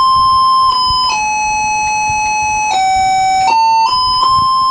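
Commodore VIC-20 sound chip playing a string of single held electronic notes, selected from the keyboard, stepping to a new pitch about every half second to a second and a half.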